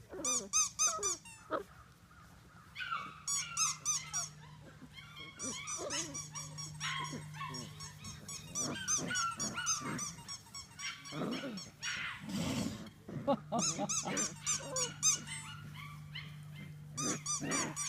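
Five-week-old Labrador puppies growling and yipping in high squeaks in bouts as they play tug-of-war.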